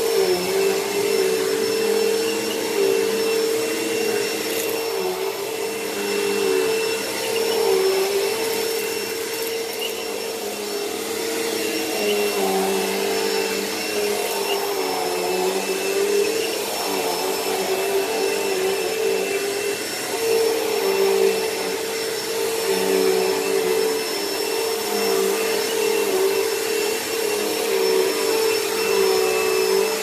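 Hoover Elite Rewind upright vacuum cleaner running steadily with a motor whine, its pitch dipping briefly now and then as it is worked over the floor.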